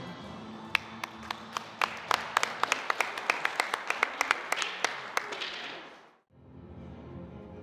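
Audience applauding, with many sharp individual claps close by over the wash of the crowd; the applause fades out about six seconds in.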